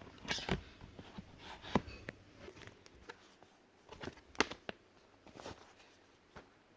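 Scattered light clicks and knocks from handling a tablet and its packaging, the loudest a little over four seconds in.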